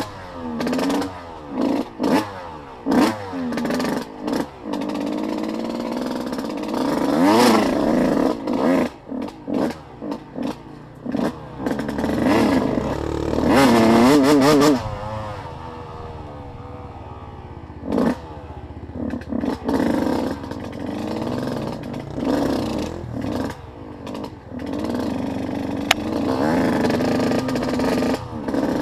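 Off-road vehicle engine revving in repeated short throttle blips, held high for a couple of seconds in the middle, then dropping back and blipping again.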